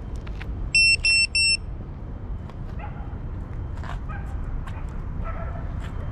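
Three short, identical high-pitched electronic beeps in quick succession about a second in, from an FPV quadcopter sitting on the ground, over a steady low rumble of wind on the microphone.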